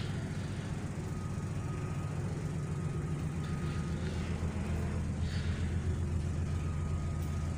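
Ferry's engines running, a steady low drone heard inside the wheelhouse, getting a little louder about halfway through as the ship gets under way after casting off.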